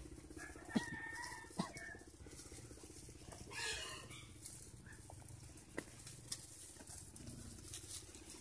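Faint chicken calls, the loudest about three and a half seconds in, with a few sharp clicks and a steady low hum underneath.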